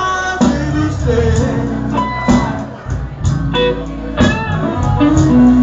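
Live rock band playing: electric guitar lines over bass and drums.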